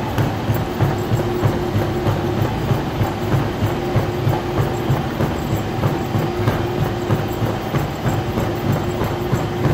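Gym treadmill running at jogging speed, with feet thudding on the belt nearly three times a second over the steady whine of its motor.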